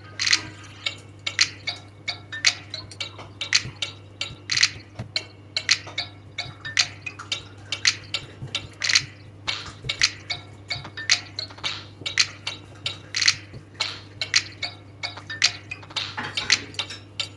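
Background music with a percussive beat of sharp ticking clicks, about two a second.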